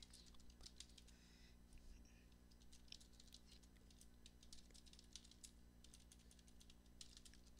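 Faint computer keyboard typing: irregular keystrokes, several a second, over a low steady hum.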